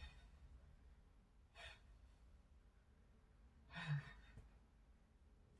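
A woman breathing hard while doing flutter kicks: faint sharp exhales, one about a second and a half in and a stronger one about four seconds in with a little voice in it.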